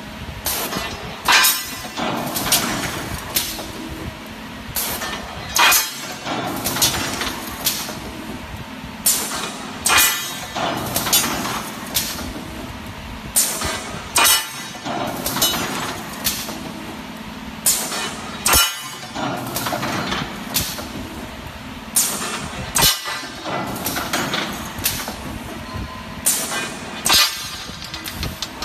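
Automatic round bar chamfering machine running with a steady hum. Steel round bars clank against each other and the steel feed rack as they are fed through, a sharp ringing metal clank every second or two.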